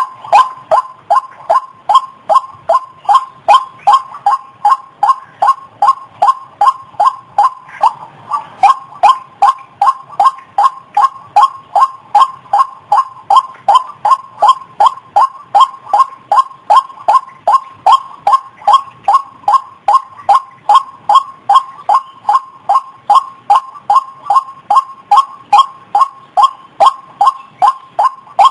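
White-breasted waterhen calling: a long, monotonous run of short, evenly spaced notes, about three a second, with a brief hitch about eight seconds in.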